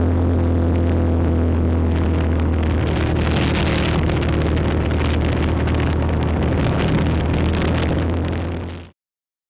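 Yamaha Rhino side-by-side's engine running at a steady cruise, with wind and trail noise over it, heard from the hood; the sound fades out quickly near the end.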